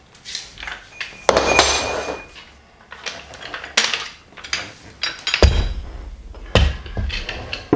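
Hand-lever 15 mm pipe bender bending 16 mm aluminium-cored multilayer plastic pipe around its former: a longer grating noise with a faint squeak about a second in, then a series of metal clanks and knocks as the bender's handles move and the pipe is worked out of the former, with a couple of heavy thumps in the second half.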